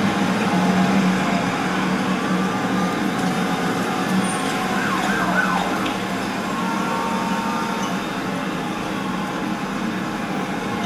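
City street noise with a siren, its pitch gliding up and down faintly about halfway through, over a steady low hum. It is the soundtrack of a projected video, heard through room loudspeakers.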